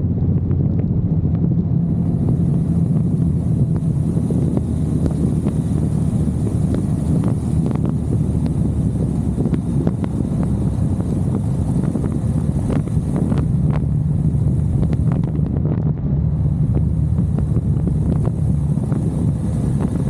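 KTM 390 Adventure's single-cylinder engine running at a steady cruising pace, with wind rushing over the microphone.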